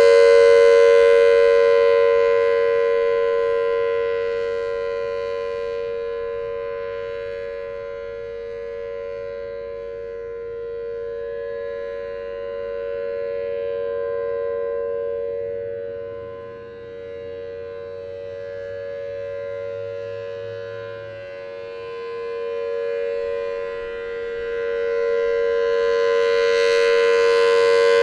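Federal Signal Thunderbolt 1003A outdoor warning siren sounding a steady, unchanging tone, the three-minute Alert signal of a tornado drill. Its rotating horn sweeps round: loud at first, fading as it turns away, then swelling again near the end.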